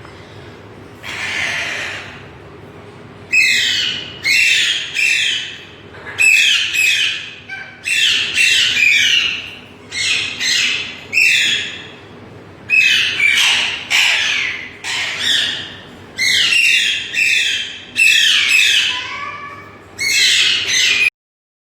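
Indian green parrot calls: loud, harsh squawks in quick bursts of two or three, repeated with short pauses. They cut off abruptly near the end.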